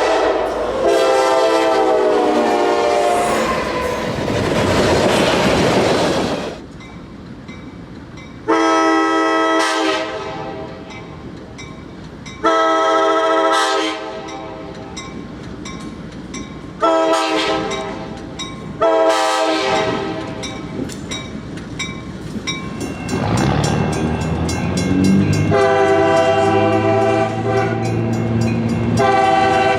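Nathan K5LA five-chime locomotive air horn sounding a series of about seven blasts, some long and some short, as a chord of several notes. Between the blasts is the rumble of a train passing.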